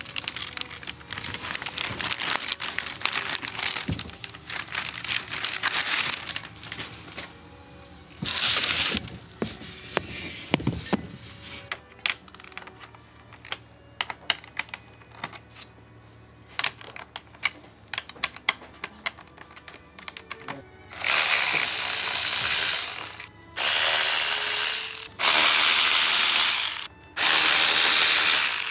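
Plastic wrapping crinkling as an aluminium radiator is unwrapped, then scattered clicks of parts being handled. Near the end a 12-volt cordless ratchet runs four times in short bursts on the bolts of a radiator fan shroud.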